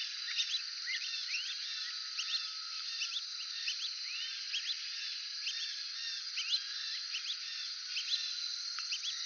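Brazilian teals calling: many short, overlapping whistled chirps, mostly rising in pitch, several a second, over a steady high-pitched hum.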